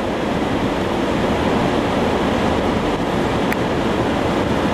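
Steady road and wind noise inside a moving truck's cab, with a faint tick about three and a half seconds in.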